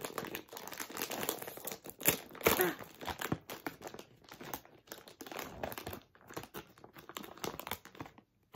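Foil-lined plastic potato chip bag crinkling and tearing as it is pulled open by hand, loudest about two seconds in, then thinning to scattered rustles.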